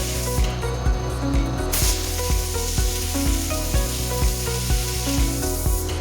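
Stock background music with a steady beat, over a steady hiss that drops out briefly about half a second in and again near the end.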